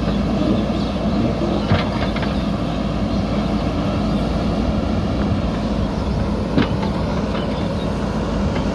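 Diesel engine of a JCB 3DX backhoe loader running steadily and close. Two sharp knocks stand out over it, one about two seconds in and one near seven seconds in.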